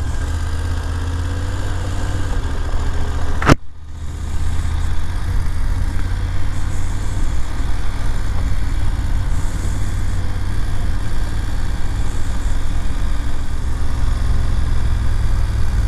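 BMW F750GS motorcycle's parallel-twin engine running on a gravel road, with one sharp click about three and a half seconds in. After the click, wind and tyre-on-gravel noise grow louder over the engine.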